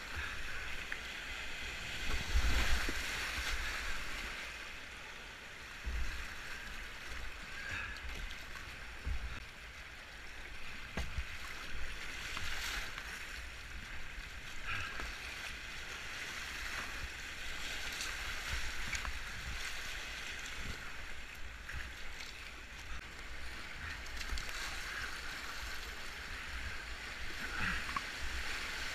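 Whitewater rapids rushing steadily around a kayak, with irregular splashes of paddle strokes and occasional low thumps.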